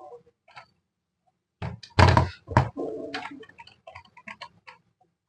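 Hand-handling knocks as a TV main board and its parts are moved about on a workbench. One heavy thunk comes about two seconds in, with another soon after, then a run of light clicks and taps.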